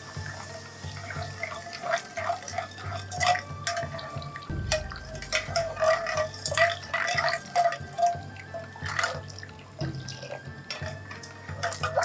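Metal ladle stirring a dark soy-and-sugar sauce in a hammered aluminium pan, with repeated light clinks against the pan and the liquid swishing, as the coarse zarame sugar is dissolved. Background music plays under it.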